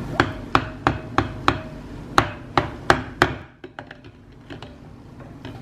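A mixing utensil knocking against the container of soap batter: about ten sharp, ringing knocks in the first three seconds, then only faint clicks.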